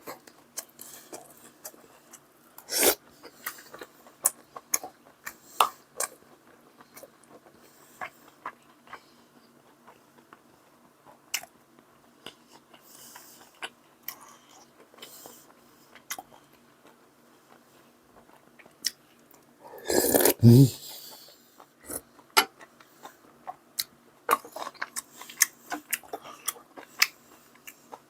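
A person eating: chewing and crunching food close to the microphone, with many small scattered clicks. About two-thirds of the way through comes one brief, louder throat sound.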